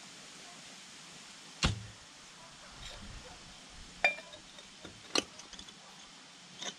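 Three sharp knocks of metal tools and suspension parts being handled, the loudest about a second and a half in and two lighter ones around four and five seconds, with faint clinking between.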